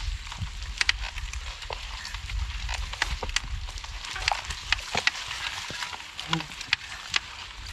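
Mountain bike riding through wet, sticky mud: tyres squelching with a dense crackle of irregular clicks and pops over a low rumble.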